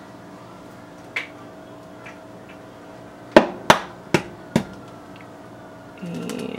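An egg tapped four times in quick succession against a hard edge to crack its shell, the first tap the loudest, over a faint steady hum.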